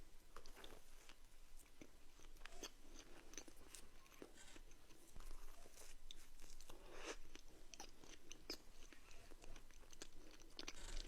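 A person chewing and crunching food close to the microphone, with scattered sharp crunches and mouth clicks.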